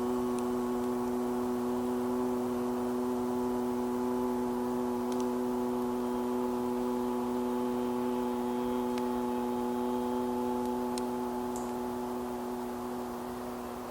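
A man's voice holding one long, steady "ooh" tone voiced from the lower belly, a qigong healing sound, without a break, easing off slightly near the end.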